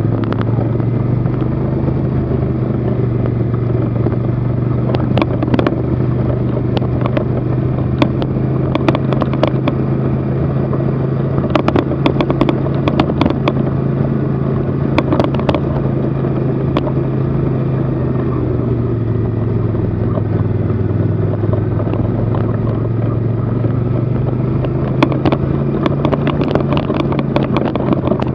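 Vehicle engine running steadily at low trail speed, with its pitch easing down about two-thirds of the way through and picking up again, and scattered clicks and rattles over it.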